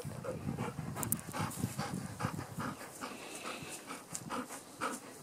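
Black Labrador gundog panting hard, quick short breaths several a second, growing quieter about halfway through.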